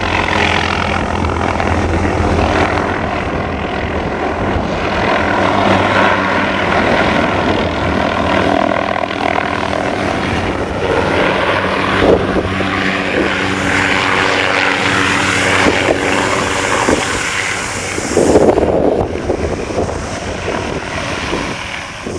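Hughes 500 (MD 500) helicopter's turbine engine and rotors running steadily, a loud rotor noise with a hum of several steady engine tones. It swells louder about three-quarters of the way through.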